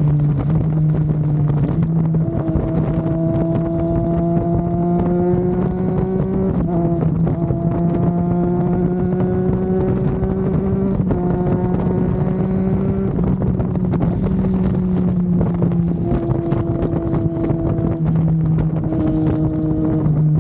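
Triumph Daytona 660's 660 cc inline-three engine under way with wind rush. The engine note climbs slowly and drops sharply at each upshift, about three times in the first half, then holds a fairly steady cruising note.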